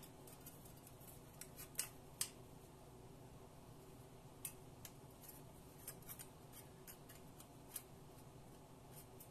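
Light, scattered clicks and taps of thin sheet-metal pieces and locking pliers being handled while the parts are clamped into position, the sharpest about two seconds in; otherwise near silence.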